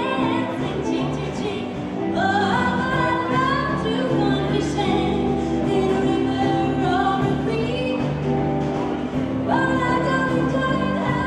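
A woman singing a slow melody with long held notes over band accompaniment.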